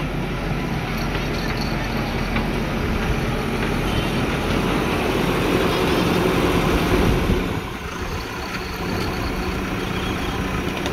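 JCB 3DX backhoe loader's diesel engine running as the machine works its front bucket through soil, growing louder a few seconds in and then dropping off suddenly about two-thirds of the way through.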